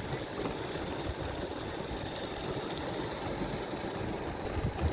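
Live-steam Darjeeling D-Class Garratt model locomotive running past on the track, pulling a train of coaches, with a steady rush of sound.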